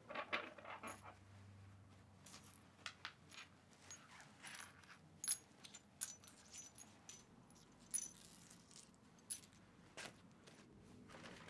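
Shards of broken glass clinking faintly and irregularly against each other and a wooden floor as they are picked up one at a time.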